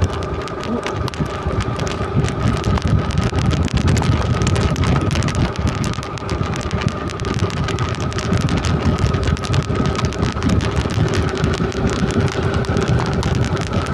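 Wind buffeting the microphone on a moving motorcycle, over the steady hum of its engine.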